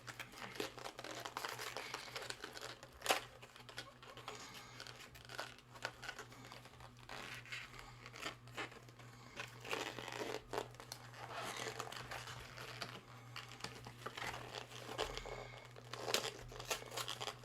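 Toy packaging being torn and crinkled by hand as the figure's legs are pulled free: irregular rustling and crackling with a few sharp snaps, over a steady low hum.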